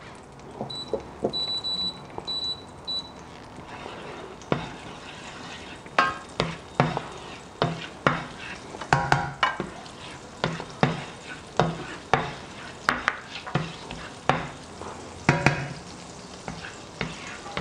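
Butter and olive oil sizzling gently in a frying pan, with a slotted spatula knocking and scraping against the pan about twice a second from about four seconds in. A few short, high electronic beeps near the start come from the induction hob's controls.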